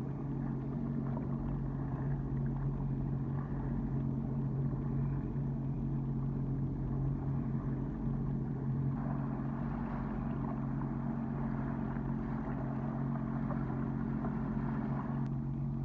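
Sea-Doo Fish Pro jet ski engine running at a steady low idle, a constant low hum. A rush of water joins in from about nine seconds in and stops shortly before the end.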